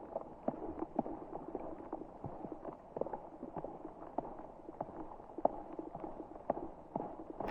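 Footsteps of a hiker walking on a mountain trail, about two steps a second, over a steady background noise.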